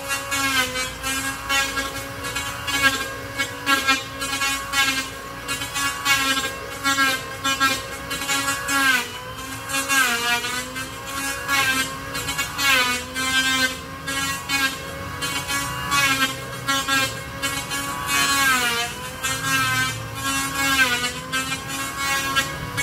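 Power woodworking tool working a wooden plank: a steady motor whine that drops in pitch several times as the tool bites into the wood, with a rapid repeating stroke noise throughout.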